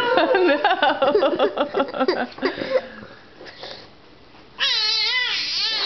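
A baby of about five and a half months making a new, strange high-pitched squealing noise whose pitch wavers up and down. It comes in two bouts, breaking off about three seconds in and starting again a second and a half later.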